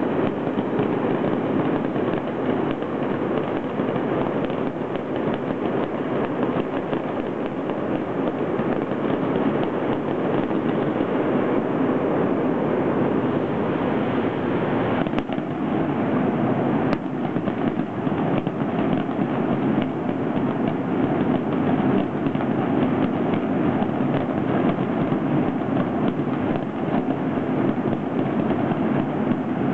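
Fireworks going off in the distance, heard as a continuous dense rumble and crackle, with two sharp pops a little after halfway.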